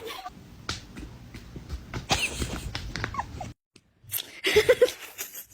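A dog's short, faint whines and small noises, broken by a moment of dead silence, then a few more short whines near the end.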